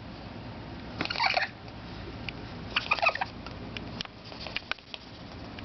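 Pet fancy rat making its odd noise: two short bursts of rapid clicks about a second and a half apart, then a few single clicks. The owners can't tell whether it is hiccups, sneezing or coughing.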